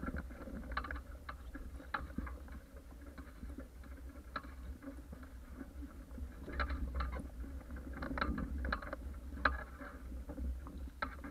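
Water rushing and splashing against the hulls of a small sailing catamaran under way, with irregular sharp spray and slap ticks over a steady low rumble.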